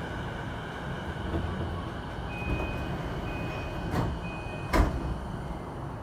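JR East E233-8000 series train door chime sounding three times while the sliding passenger doors open, with a clunk and then a louder thump near the end as the doors slide open. A steady rumble from the stopped train runs underneath.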